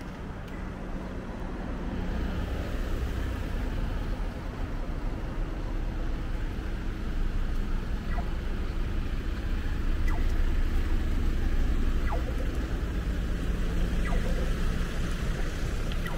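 Street ambience of road traffic: a steady low rumble that swells through the middle, as with vehicles passing close by.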